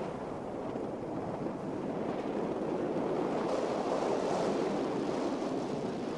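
Rushing wind: a steady roar of air with no pitch, swelling a little a few seconds in, during a BASE jumper's freefall down a mountain face.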